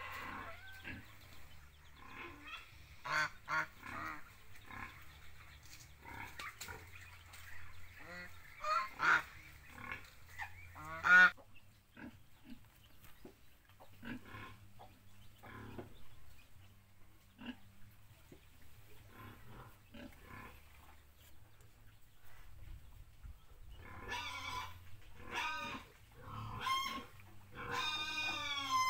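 Domestic geese honking in a flock, with repeated short calls and one loud honk about eleven seconds in. A quieter stretch follows, then another run of calls near the end.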